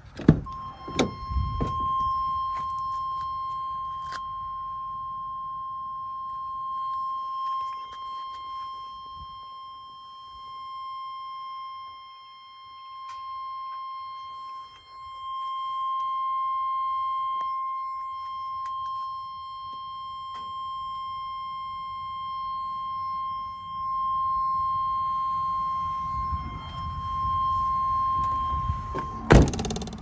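The driver's door of a 2000 Chevrolet Express bus opens with a thunk, and a steady high electronic warning tone sounds from the dash while the door stands open. A few small clicks of handling come through. The tone cuts off as the door is shut with another thunk near the end.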